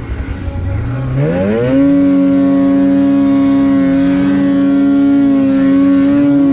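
Snowmobile engine under throttle. It wavers at low revs, climbs steeply to high revs about a second in, holds there steadily, and begins to drop off at the end.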